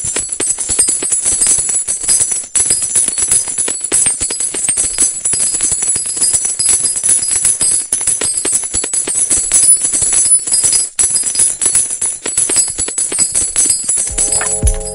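Sound effect of a shower of gold coins falling: a dense, continuous jingle of many small metal clinks with bright ringing. About a second before the end, music with steady held notes comes in underneath.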